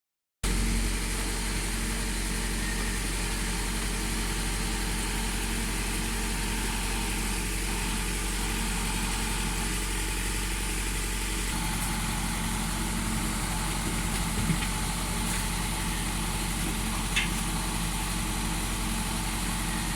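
A vehicle engine idling steadily, with a couple of short clicks partway through.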